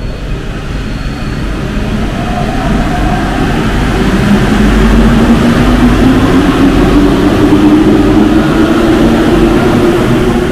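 Alstom MP-05 rubber-tyred metro train accelerating: a rumble under a motor whine that rises steadily in pitch and grows louder from a few seconds in.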